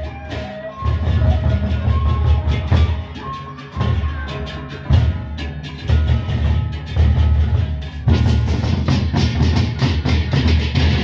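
A Lombok gendang beleq ensemble playing: large double-headed barrel drums beaten in a driving rhythm, with crashing hand cymbals and a few short ringing metallic tones over the top.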